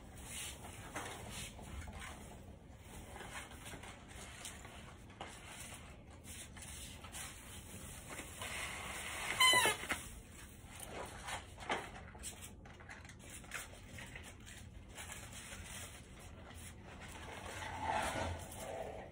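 Rustling and crackling of artificial Christmas tree branches as a string of globe lights is wrapped through them. About halfway through comes one short, high-pitched cry with a wavering pitch, the loudest sound, like an animal's.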